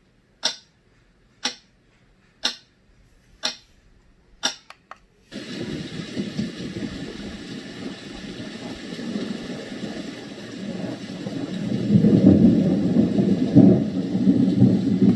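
Renpho sound machine's built-in sound tracks playing through its speaker. First a pendulum clock ticks about once a second. Then, about five seconds in, a thunderstorm track starts, with steady rain and rolling thunder that grows louder near the end.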